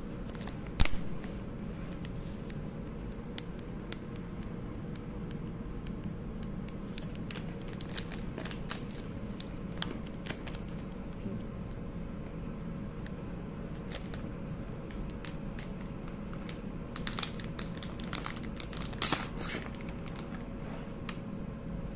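Scattered small clicks and crinkly handling noise, with one sharp click about a second in and a denser cluster near the end, over a steady low hum.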